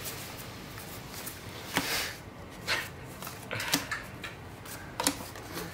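Magic: The Gathering trading cards being slid against each other and laid onto piles on a playmat: a few short, soft flicks and slaps over a steady hiss.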